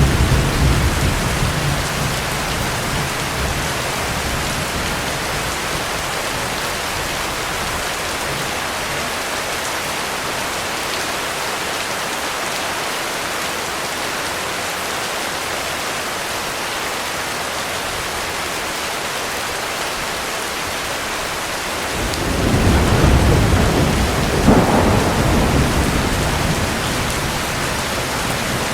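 Heavy rain falling steadily. Thunder rumbles out over the first few seconds, and near the end a new roll of thunder builds, with one sharper crack in it.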